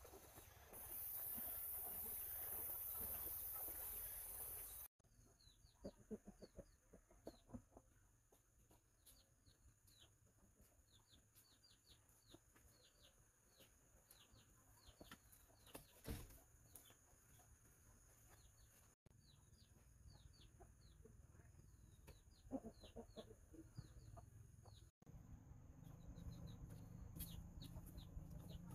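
Water splashing as a person wades through a shallow stream for the first few seconds. After that, faint chicken clucking and many quick, high chirps, with soft steps on a muddy floor.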